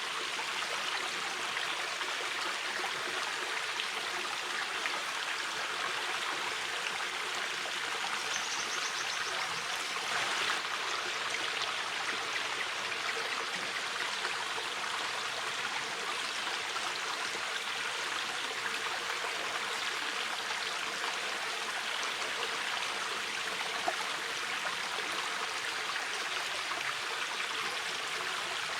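Shallow mountain river flowing steadily over stones, a continuous rushing of water.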